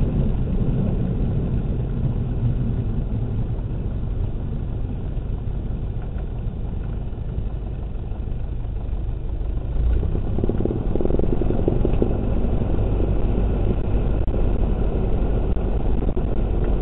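Light single-engine airplane's piston engine and propeller running steadily, heard from inside the cockpit. It gets louder about ten seconds in.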